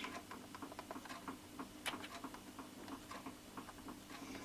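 Faint, irregular clicks and taps of a handheld label maker's keys being pressed, one a little louder about two seconds in.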